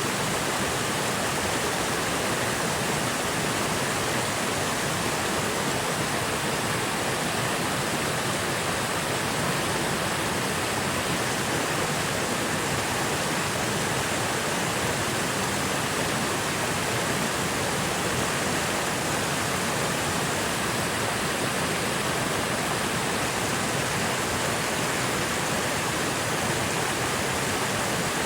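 Creek water babbling, a steady, unbroken rush of flowing water.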